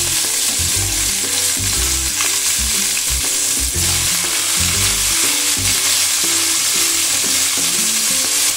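Small tilapia fish sizzling steadily in hot oil in a wok while they fry. A metal spatula knocks and scrapes now and then as the fish are turned, mostly in the first half.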